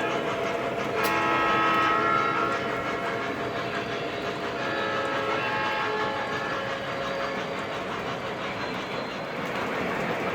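O gauge model train running on the layout's track, its locomotive's sound system sounding its warning signal: a long blast about a second in and a shorter, fainter one around five seconds, over the steady rolling of the wheels.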